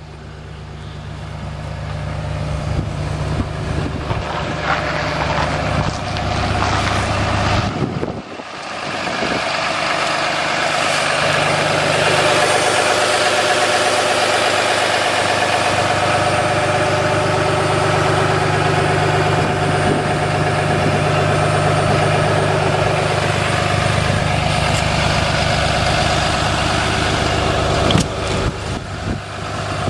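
Cummins turbo-diesel inline-six of a Ram heavy-duty pickup running at a steady idle. The sound dips briefly about eight seconds in, then comes back louder and holds steady.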